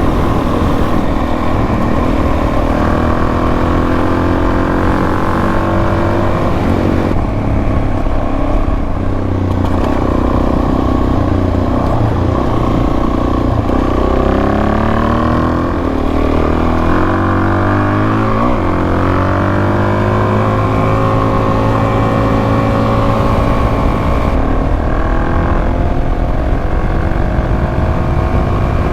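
Suzuki DR-Z400S single-cylinder four-stroke engine running on the road, its note climbing and dropping several times with throttle and gear changes, over steady wind noise.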